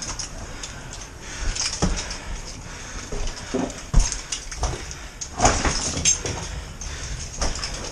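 Boots and hands clambering over loose rock: irregular knocks, scuffs and scrapes, with a few louder knocks about four and five and a half seconds in.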